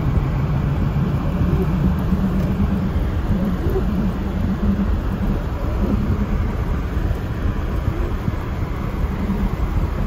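Steady low rumble of a car's engine and tyres heard from inside the cabin while driving over a snow-covered road.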